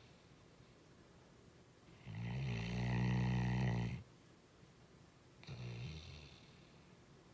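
Snoring: one long, low snore of about two seconds starting about two seconds in, then a shorter, softer snore near the end.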